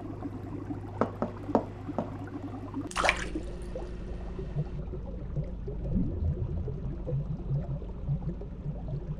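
Water sound effects: a low hum with a few drips early on, a short rushing splash about three seconds in, then low bubbling and gurgling underwater.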